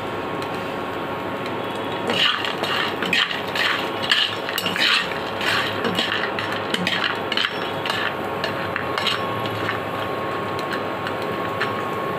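Metal spatula stirring boris (sun-dried lentil dumplings) frying in oil in a kadai, with quick clinks and scrapes against the pan from about two seconds in, over a steady sizzle and the faint hum of an induction cooktop.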